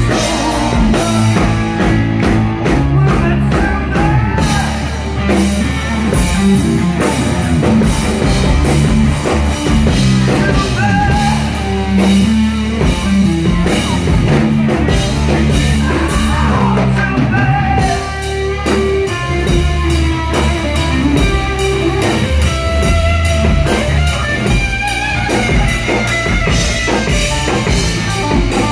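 Rock band playing live: drum kit, electric guitar and bass, with singing.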